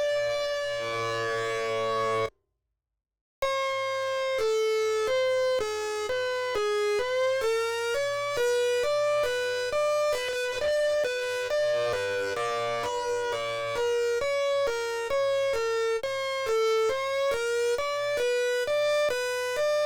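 Prototype electronic siren sounding a buzzy tone that steps rapidly between several pitches in a jumpy sequence, with a few short dips and glides in pitch. About two seconds in it cuts out for about a second, then resumes.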